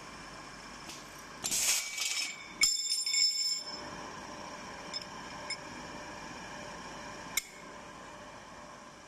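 Semi-automatic drilling machine for steel brake back plates working over a steady machine hum: a short hiss, then metal clanking with a ringing tone about three seconds in, followed by a few light clicks and one sharp click near the end.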